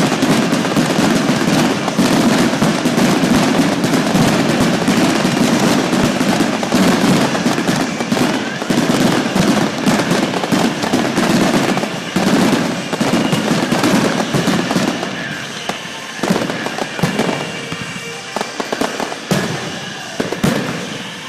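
Fireworks display: a dense, continuous barrage of bursts and crackling, thinning into more separate bangs in the last few seconds.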